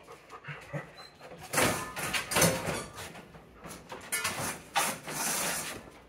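A dog panting, with a few loud clattering, jingling noises from the front door and the strap of jingle bells hanging on its knob.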